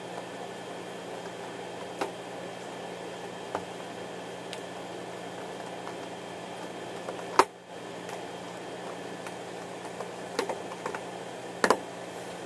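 Scattered thumps and slaps of bodies and hands on a grappling mat during jiu-jitsu drilling, the loudest about seven seconds in and a few more close together near the end, over a steady hum of room ventilation.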